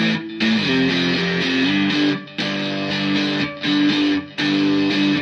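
Background music: a distorted electric guitar playing held notes that step from pitch to pitch, with a few brief breaks.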